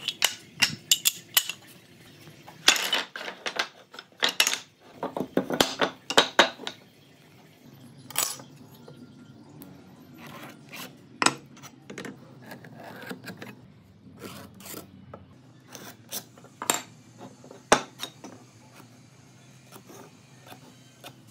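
Short wooden blocks knocking and clattering against each other as they are handled and stacked, in quick runs over the first several seconds. After that come only scattered single light taps and clicks.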